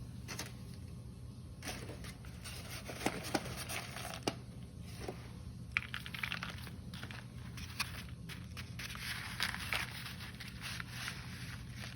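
Packed cornstarch being squeezed and crunched, a dense run of irregular crisp crackles and squeaks with a few sharper snaps.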